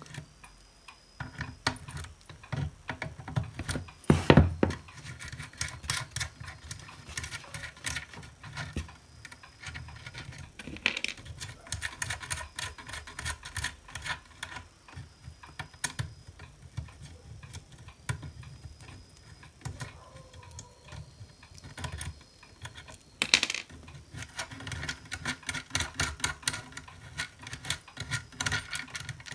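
Irregular small metallic clicks and taps of hand tools working the nuts off the potentiometer shafts on a hot air rework station's front panel, with a few louder knocks.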